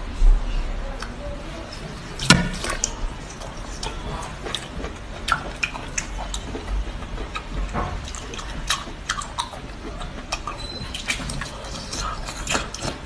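Wet mouth sounds of a person eating octopus in chili sauce: irregular sticky smacks, squelches and clicks, the sharpest about two seconds in.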